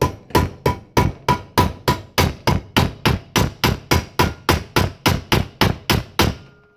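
A hammer striking a flat stainless steel piece clamped in a bench vise, bending it over the jaws. The blows come steadily about three a second, each with a brief metallic ring, and stop shortly before the end.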